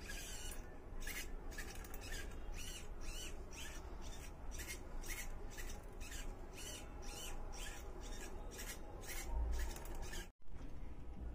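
A harsh electronic alarm from the robot's loudspeaker, repeating about two and a half times a second. It cuts off abruptly about ten seconds in.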